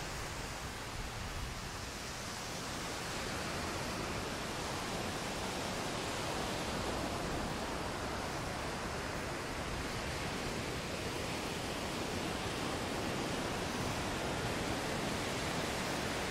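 Surf breaking and washing onto a sandy beach, a steady rushing noise that swells slightly after the first couple of seconds.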